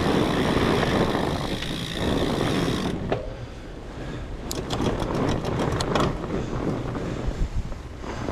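Fat bike riding over a snowy trail: steady rumble of tyres and wind on the microphone, with a quick run of sharp clicks from the bike about halfway through.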